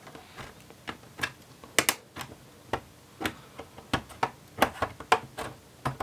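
Plastic snap clips of an ASUS Vivobook X415EA laptop's base cover clicking loose as a plastic pry tool works along the edge: a run of irregular sharp clicks, two or three a second.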